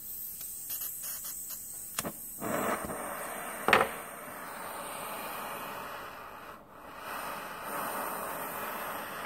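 Butane pencil torch hissing steadily. A few clicks come about one to two seconds in, and a sharper pop a little under four seconds in.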